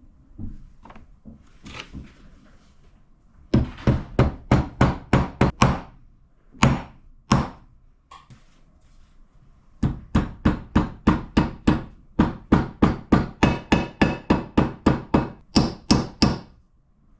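Repeated hammer blows: a quick run of about nine, two single blows, then a steady run of about twenty at roughly three a second, the later ones ringing.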